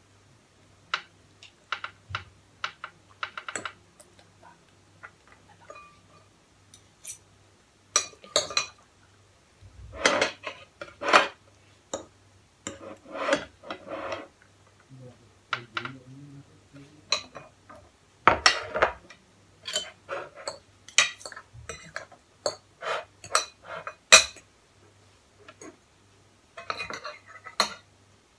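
Metal forks and spoons clinking and scraping against ceramic plates as noodles and food are served, in irregular taps and clinks, with one sharper clink toward the end.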